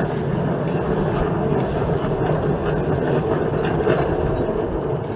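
7¼-inch gauge live-steam model of an SNCB Type 5 locomotive running along its track, with hissy exhaust puffs about once a second over the rumble of its wheels on the rails.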